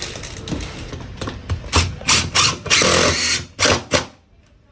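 Power drill driving screws to fasten a new toilet flange down to the floor, running in several short bursts with one longer run, then stopping.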